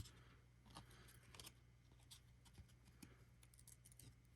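Near silence: faint scattered ticks and light rustles of trading cards being handled, over a low steady room hum.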